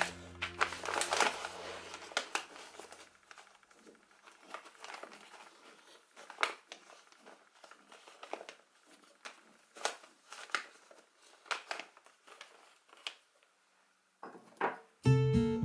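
Paper being handled, crinkling and rustling in short irregular bursts with quiet gaps between. Background music fades out at the start and music comes back in near the end.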